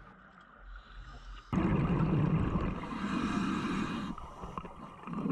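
A scuba diver breathing through a regulator, heard underwater through a camera housing. A rush of bubbling breath starts suddenly about a second and a half in and lasts a couple of seconds, and after a short lull the next breath starts near the end.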